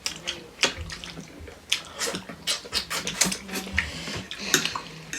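Close-up eating sounds: wet chewing and lip-smacking in quick, irregular clicks as food is chewed.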